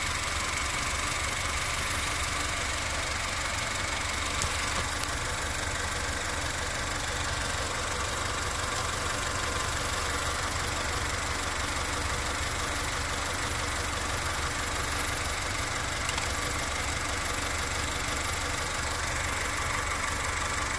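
Honda Civic's four-cylinder petrol engine idling steadily.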